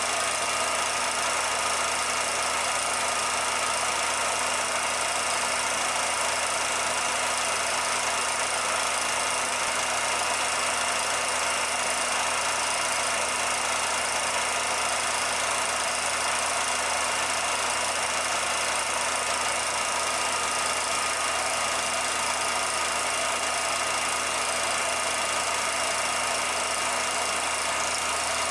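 Film projector running steadily: an even mechanical whir with hiss and a few constant hum tones, with no sound from the train itself, since the film is silent.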